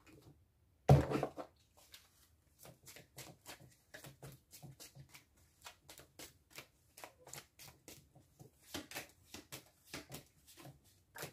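Tarot cards being shuffled by hand: a run of soft flicks and taps of cards, several a second, with one louder thump about a second in.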